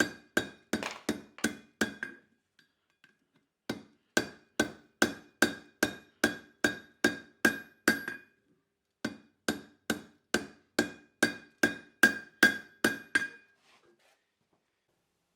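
Hand hammer striking steel on an anvil during forging, about two to three blows a second in three runs separated by short pauses. Each blow has a ringing tone. The blows stop about 13 seconds in.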